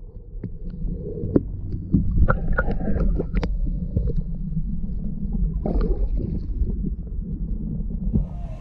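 Steady low rumble with scattered knocks and clicks, as of gear being handled and the hull being knocked aboard a fishing kayak on the water.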